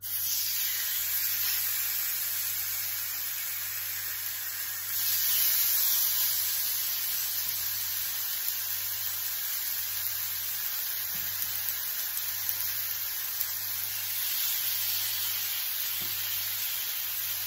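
Seasoned salmon fillets sizzling in an oiled grill pan as they are laid in one after another; the sizzle gets louder about five seconds in. A faint low hum runs underneath.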